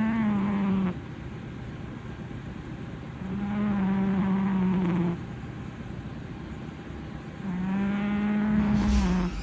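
British shorthair cat snoring: each snore is a buzzing tone about two seconds long, coming about every four seconds. One snore is ending at the start and two more follow. A brief low thump comes near the end as the last snore stops.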